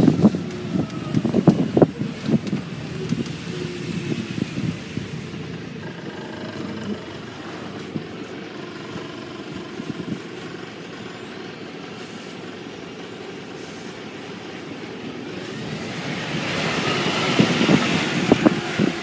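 A double-decker bus heard from its open top deck as it moves along: gusts and knocks on the microphone at first, then a quieter steady running as it goes slowly, with another double-decker close alongside. The noise swells again near the end.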